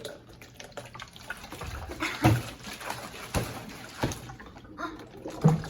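Water swirling and gurgling as it drains through a bottle connector from one plastic soda bottle into another, forming a water tornado. A few sharp knocks are heard along the way.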